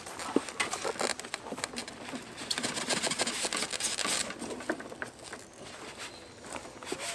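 Cardboard box being slid up off a foam-packed griddle: cardboard scraping and rustling against styrofoam, with scattered knocks and taps. The loudest scraping comes about two and a half to four seconds in.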